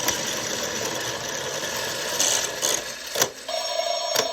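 Toy slot machine's reels spinning with a dense mechanical whirr, with a sharp click about three seconds in as they stop. Just after, an electronic ringing jingle of steady tones starts, the machine's win signal for three 7s.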